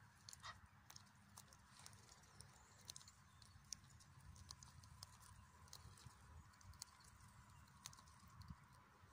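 Faint, irregular soft clicks and snips of an Egyptian goose plucking and tearing grass with its bill, over a low background rumble.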